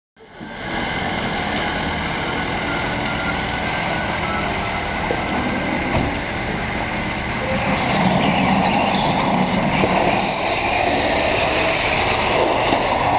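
Engine of an off-road 4x4 running steadily under load, growing louder about eight seconds in.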